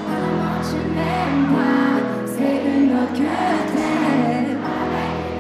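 Live pop concert: a woman singing into a microphone over a pop backing track with sustained bass notes.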